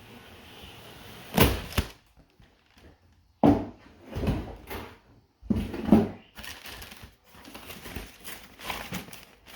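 Cardboard box being opened and its packaging handled, in several separate bursts of rustling and scraping.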